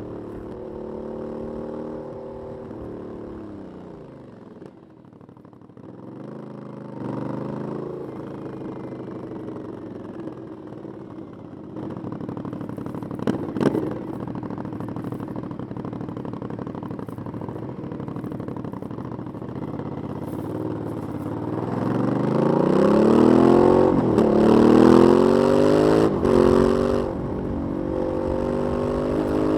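Aprilia 900 cc 90° V-twin motorcycle engine on its stock exhaust, ridden: the revs drop off a few seconds in, then it runs fairly steadily, with a brief clack about halfway. In the last third it accelerates hard, the pitch rising several times with short breaks for gear changes.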